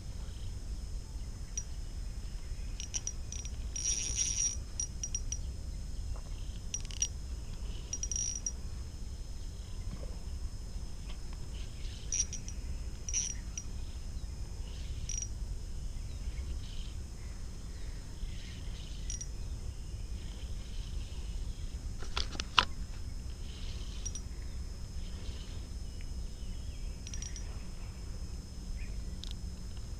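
Tropical riverbank ambience: a steady high insect drone with short bird and insect chirps scattered throughout, over a low constant rumble. A single sharp click about three-quarters of the way through.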